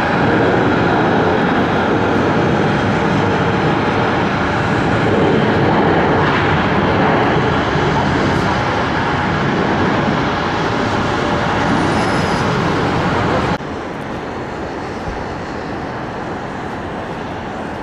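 Jet engines of a twin-engine regional jet running at high power as it speeds along the runway: a loud, steady rush of engine noise. About 13.5 seconds in it cuts off suddenly to a quieter, steady hum of airport engine noise.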